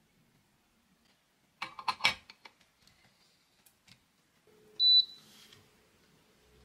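A quick run of sharp metal clicks and clatter from handling the espresso portafilter and its tools about a second and a half in. Near the end comes a single short high-pitched beep from an electric gooseneck kettle's control base, followed by a faint steady hum.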